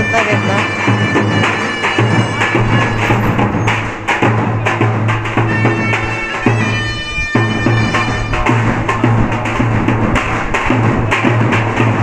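Davul and zurna playing a folk dance tune: a loud, reedy shawm melody over the beats of a large bass drum.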